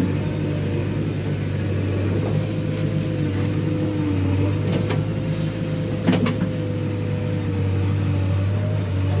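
Diesel engine of heavy earthmoving or farm machinery running steadily, with a constant low drone and a held higher whine. Two short knocks come about a second apart near the middle.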